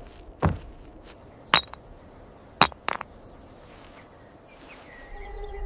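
Stones knocking together: a dull knock, then two sharp ringing clinks about a second apart, the second followed by a smaller click.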